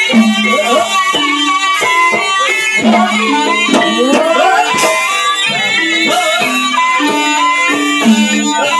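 Live traditional Javanese music accompanying an ebeg hobby-horse dance: a sliding, wavering high melody over held low notes, with regular drum strokes.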